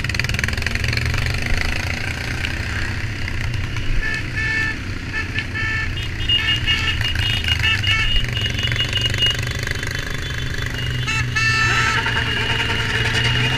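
Motorcycle engines running at low speed in a group ride, a steady drone, with short horn beeps sounding again and again above it.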